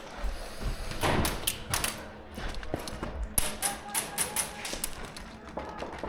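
Airsoft guns firing: a scatter of sharp snaps, with a quick run of them about three and a half seconds in, mixed with low thuds of movement.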